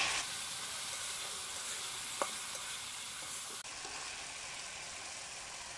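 Spiced onion-and-tomato masala sizzling in a hot karai while a metal spatula stirs it, with one short click of the spatula about two seconds in. The sizzle drops a little quieter about halfway through.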